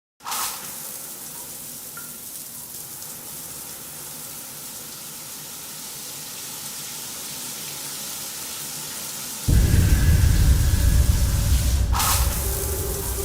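Steady hiss of running water, as from a shower. About nine and a half seconds in, a much louder deep rumble joins it, and a brief sharp crack comes near the end.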